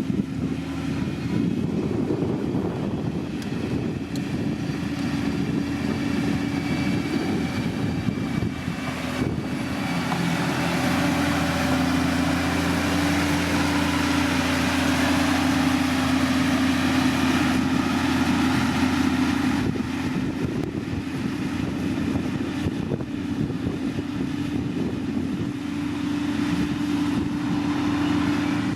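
Diesel engine of heavy road-construction machinery running steadily, with a strong low hum; it grows louder and noisier in the middle and eases off again toward the end.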